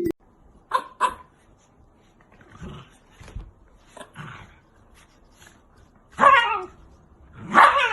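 Shiba Inu puppy vocalising: two short yips about a second in, a few soft whimpers, then two longer, louder whines near the end that fall in pitch.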